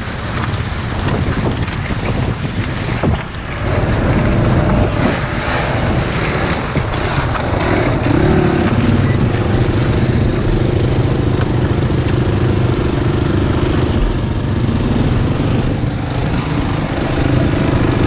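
Off-road engines of quad bikes and a dirt bike running steadily close by, with no revving. Wind buffets the microphone in the first few seconds; from about four seconds in a steady engine note comes to the fore.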